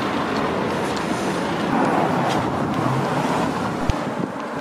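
Street traffic noise: a car driving by on the road, a steady rush of engine and tyres that swells slightly midway, with one brief thump near the end.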